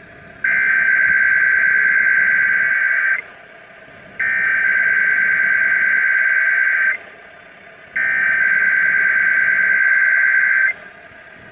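Emergency Alert System SAME header on NOAA Weather Radio: three identical warbling digital data bursts of about three seconds each, a second apart, over radio hiss, marking the start of a weather warning alert.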